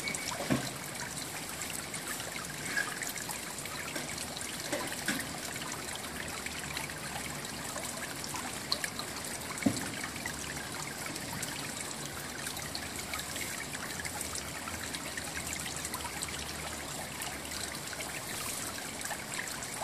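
Steady trickling of running water, with a few brief soft knocks.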